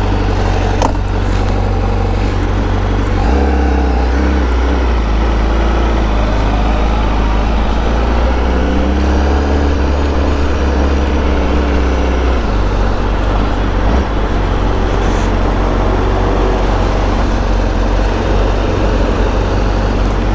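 Honda CBR1000RR-R Fireblade SP's inline-four engine running through an Akrapovic exhaust as the bike is ridden off, with a steady low drone. Its pitch shifts about three seconds in and again about twelve seconds in, with rising and falling revs in between.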